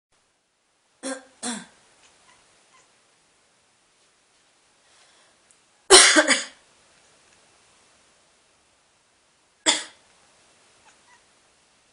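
A person coughing in short fits: two quick ones about a second in, the loudest near the middle and one more near the end. A cat answers with angry cries, annoyed by the coughing.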